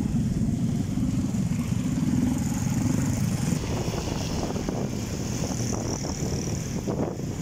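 Motorcycle engine running as it rides along, with road and wind noise, easing to a lower, steadier note about halfway through.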